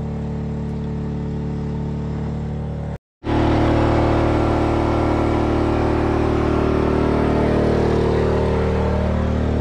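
Champion 2200 W petrol inverter generator running steadily under about 1.6 kW of charging load from an electric car's onboard charger. It is muffled at first, cuts out for a moment about three seconds in, then comes back louder.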